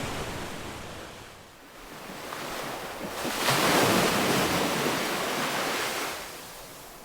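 Ocean waves on a shore: a wash fades out about a second and a half in, then a wave breaks about three and a half seconds in, at its loudest, and slowly recedes.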